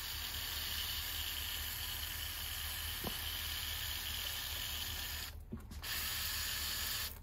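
Aerosol can of wasp spray hissing as a steady jet is fired at a wasp nest, cut briefly about five seconds in, then a second shorter burst that stops near the end.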